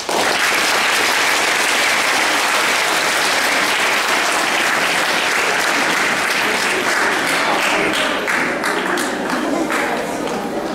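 Audience applauding: dense clapping that thins out to scattered single claps about eight seconds in.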